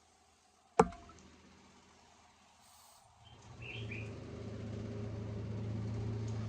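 A single sharp click, then about three seconds in a low steady electric hum starts up, swells over the next second and holds, like a small motor running.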